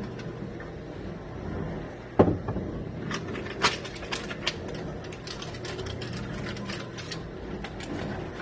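Dry rice mix being added to a pan: a single knock about two seconds in, then scattered clicks and rustles from the packet and grains, over a low steady hum.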